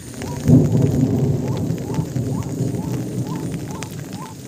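A low roll of thunder that breaks suddenly about half a second in and slowly dies away. Short rising calls repeat about twice a second above it.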